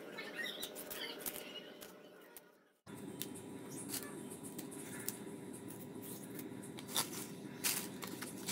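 Knife cutting through water spinach (kangkung) stems, a run of small crisp clicks and snaps that fades away about three seconds in. Then a steady low hum with leaves and a plastic bag being handled, with two sharper rustles near the end.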